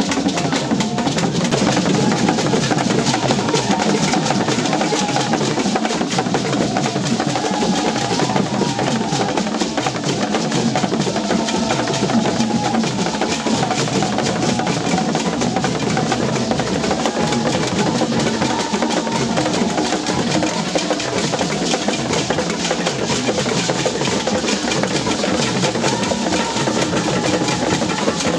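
Traditional Ghanaian drumming: several wooden barrel hand drums struck by hand in a fast, unbroken rhythm, with gourd rattles shaken along.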